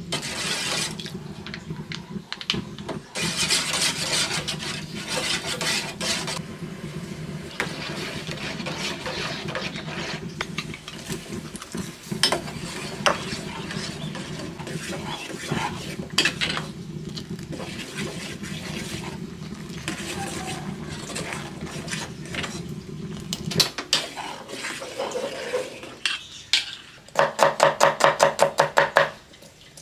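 Metal spoon stirring and scraping around a metal saucepan of sauce, with scattered clinks against the pan, over a steady low hum that stops about three-quarters of the way through. Near the end, a knife chopping shallots on a wooden cutting board in a fast, even run of about eight strokes a second.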